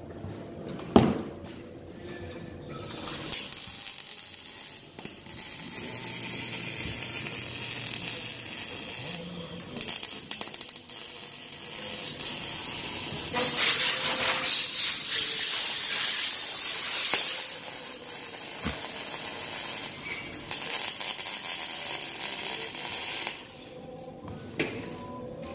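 Wire-feed (MIG) welding arc crackling and hissing as beads are laid on steel square tubing, in several runs that are loudest in the middle and stop shortly before the end. A sharp click about a second in.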